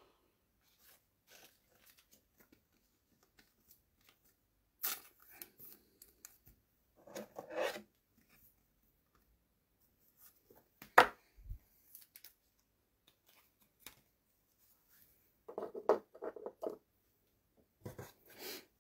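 Trading cards and their pack wrappers being handled: scattered brief scraping, rustling and sliding noises, with one sharp click about eleven seconds in.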